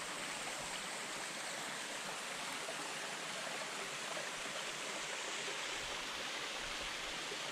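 A small headwater brook running over stones, a steady rush of flowing water.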